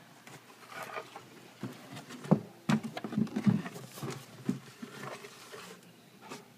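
Handling noise: irregular rustles, scrapes and knocks as a newspaper papier-mâché piñata shell is turned over and moved, the loudest knock a little over two seconds in.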